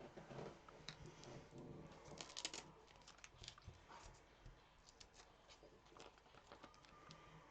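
Faint handling noise from crafting work: scattered light clicks, taps and rustles, busiest about two to three seconds in.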